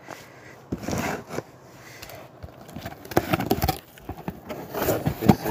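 Cardboard shipping box being handled and opened: scraping and crackling of cardboard in several bursts, about a second in, around three seconds in and again near the end.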